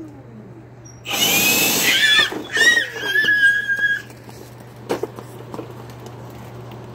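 Leaf blower switched on in a loud burst of about three seconds, starting about a second in, then cut off; a sharp knock follows about a second later.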